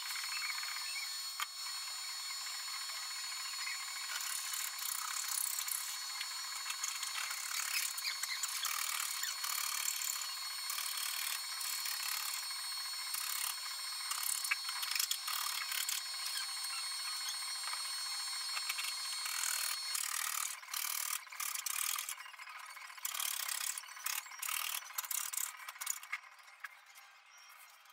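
Hand file rasping along the edge of a laminated plyboard panel, taking off the overhanging formica laminate. Steady back-and-forth strokes at first, then broken into separate strokes and fading near the end.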